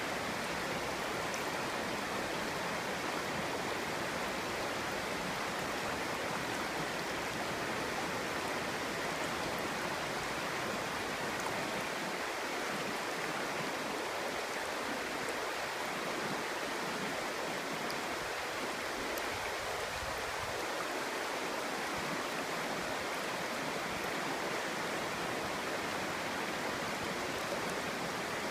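Clear stream flowing over rocks, a steady babbling rush of water.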